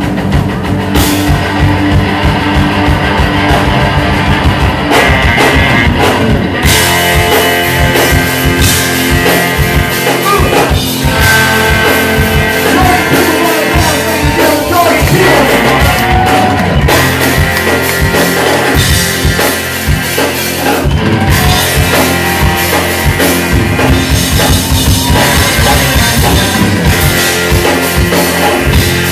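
Live rock band playing loud: drum kit, electric guitar and bass under a singing lead line, heard from among the crowd in a club.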